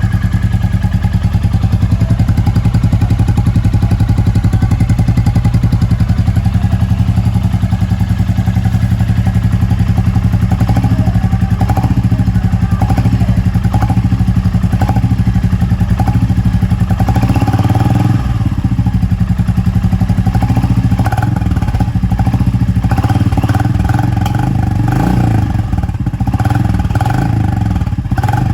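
Royal Enfield Classic 350's single-cylinder engine running through an aftermarket INDORI silencer, a steady, even "dug dug" thump of a big single at idle.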